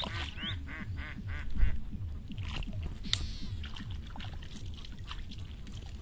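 Birds calling in a rapid run of quacks through the first two seconds, then a few scattered calls, over a low rumble.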